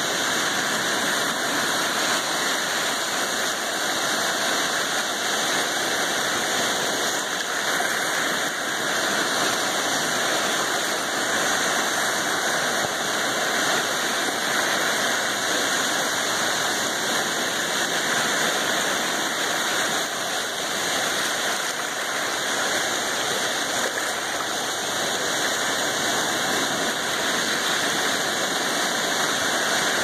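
Small waves washing over a shallow sandy beach edge, a steady hiss of moving water with no distinct breaking surges.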